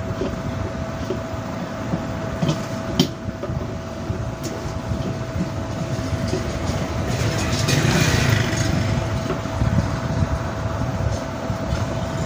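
A spanner turning a nut inside a stainless-steel spin-dryer drum: metallic scraping, rattling and clicks, over a faint steady hum. A sharp click comes about three seconds in, and a louder rumbling, grinding stretch comes near eight seconds, as the tightening nut presses the motor shaft out of the drum.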